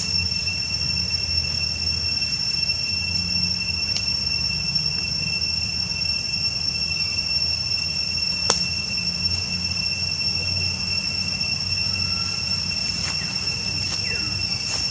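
Steady, high-pitched insect drone, two unbroken tones held without change, over a low background rumble; a single sharp click a little past halfway.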